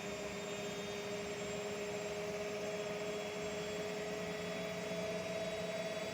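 Bosch washing machine running with a steady hum and a two-note whine that barely changes.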